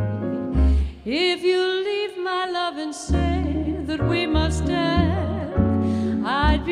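Bolero played by a small band of acoustic guitar, upright double bass and keyboard, with a woman's voice swooping up into a long held note about a second in, then more bending melodic lines over plucked bass notes.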